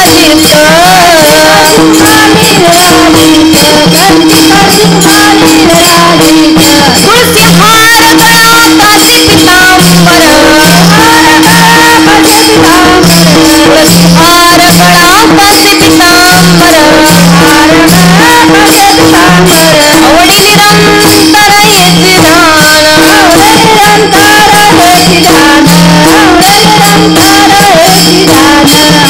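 Kirtan devotional music: a wavering melody over fast, continuous jingling cymbal-like percussion and a steady pulsing low beat.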